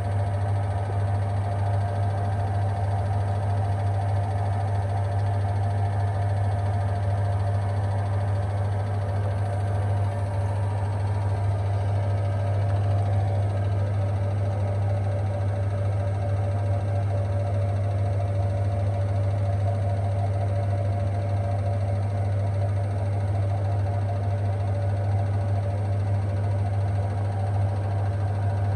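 Washing machine drum spinning at a steady 800 rpm during the spin cycle: an even motor hum with a constant whine, holding the same speed throughout.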